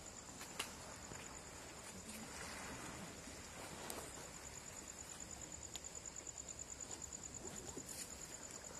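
Faint insects trilling: a steady high-pitched trill that turns into a rapid, even pulsing in the second half. A single sharp click sounds about half a second in.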